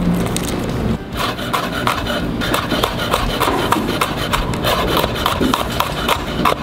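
Fingers rubbing the papery skin off a garlic clove, then a chef's knife slicing the clove thin on a wooden cutting board, in a fast, even run of knife taps on the board, about five a second.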